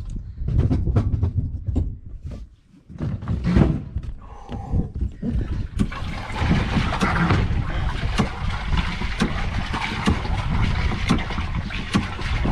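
Irregular knocks and bumps against a small fibreglass boat hull as someone climbs down into its cockpit and handles the human-powered fin-drive mechanism, over a steady low rumble. From about six seconds in, a dense rustling, rushing noise joins the knocks.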